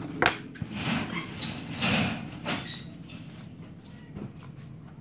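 White cardboard phone box being handled and opened: the card parts slide and scrape against each other, with a few sharp taps, loudest in the first half and quieter after about three seconds.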